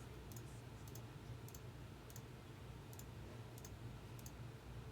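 Faint computer mouse clicks, about one every two-thirds of a second, over a low steady hum, as the team list is randomized click by click.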